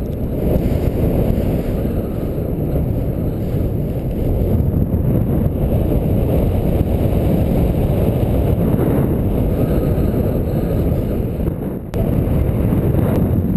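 Wind buffeting the microphone of a paraglider pilot's camera during the takeoff run and into flight: a loud, steady low rushing, with a brief drop about twelve seconds in.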